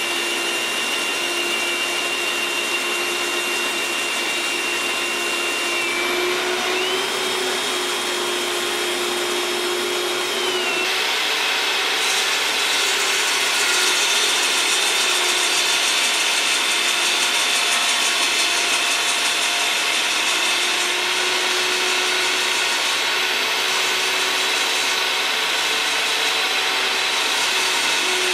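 A compact Bosch table saw's blade and a Milwaukee hammer drill run together: the drill spins a hinoki blank while the blade shaves it down into a round dowel. A steady motor whine sits under the hiss and rasp of wood being cut. The whine drops and comes back at a slightly different pitch about six seconds in, and the cutting grows fuller and a little louder from about twelve seconds.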